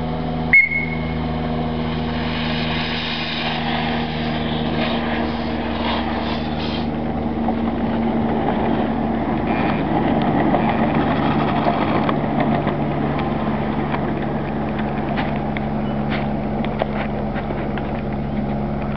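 Heinz 57 "Mongrel" miniature live-steam locomotive on its first run, pulling away and running along the track: a steady mix of steam and wheels-on-rail noise with low steady hums underneath. A sharp knock sounds about half a second in.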